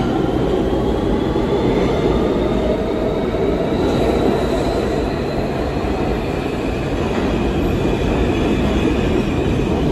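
NYC Subway R160B train with Siemens propulsion accelerating out of an underground station: a loud steady rumble of wheels on rail with a propulsion whine rising in pitch and some wheel squeal. The train's sound carries on as it recedes down the tunnel.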